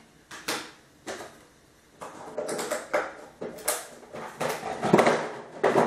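Irregular clicks, knocks and rustles of things being handled in a clear plastic storage tub, growing denser from about two seconds in.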